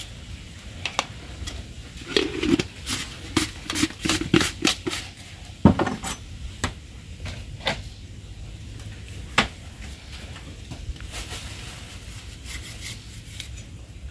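Small metal spoon clinking and scraping against a stone mortar as seasoning is spooned in. There is a quick run of clicks in the first few seconds, the loudest at about five and a half seconds, then a few scattered taps.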